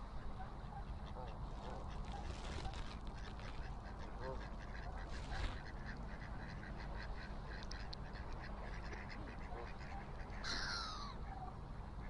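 Mallards quacking and Canada geese calling, with one louder call falling in pitch near the end, over a steady low rumble.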